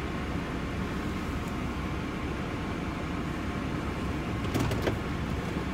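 Steady low hum of a truck running, heard from inside the cabin as it pulls slowly into a parking space, with a few faint clicks about four and a half seconds in.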